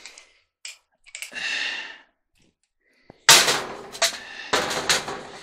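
Round metal dryer heater pan being handled and flipped over on the dryer's top: a brief scrape about a second in, then a loud bang a little after three seconds and several more clanks as the metal knocks against the top.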